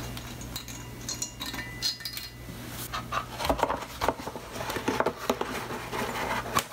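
Light metallic clinks and taps with brief ringing as parts are handled on a Shovelhead cylinder head. About halfway through, a dense run of crinkling and rustling takes over as the paper-and-plastic gasket-set packet is handled.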